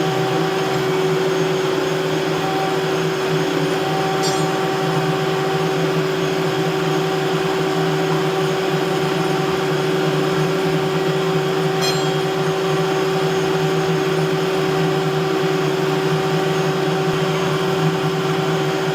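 A machine running steadily, giving an even mechanical hum that holds one pitch throughout.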